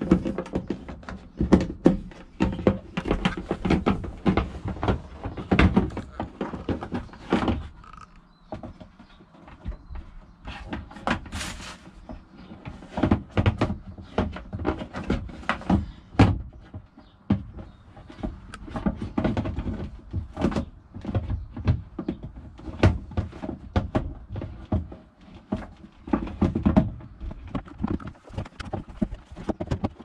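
Irregular knocks, clicks and thumps of hands working a flush pump and its pipe back into the plastic flush-tank housing of a Thetford C402 cassette toilet, quieter for a few seconds partway through.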